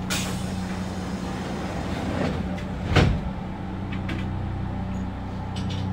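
Standing Kintetsu electric train heard from inside the cab: a steady low electrical hum, a short hiss of air at the start and one heavy thump about three seconds in, as the passenger doors close before departure.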